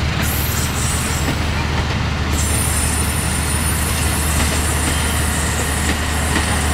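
Coaches of the Argo Jati executive passenger train rolling past on the track: a loud, steady running noise of steel wheels on rail.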